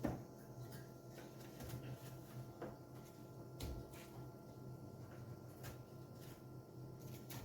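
Faint scattered clicks and light knocks, about five in all, as food packs and containers are handled and placed in a freezer, over a steady low hum.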